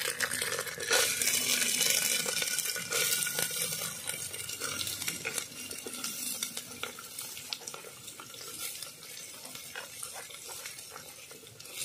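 Soaked, drained chana dal (split Bengal gram) tipped into a hot aluminium pressure cooker of fried spices and oil. The lentils patter in and sizzle, loudest over the first few seconds, then settle to a quieter sizzle with scattered small clicks.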